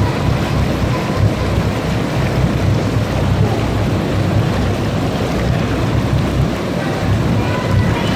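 Jacuzzi jets churning the water into a steady bubbling rush.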